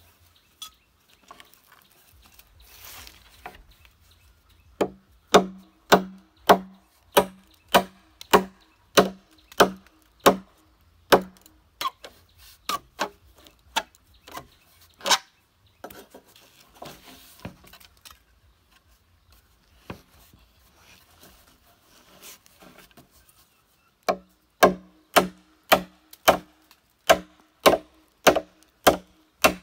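Machete chopping into a thick green bamboo culm to cut it through: runs of sharp strikes at about one and a half to two a second, each with a short hollow ring. Between the runs come lighter, sparser strikes, and the first few seconds are quieter.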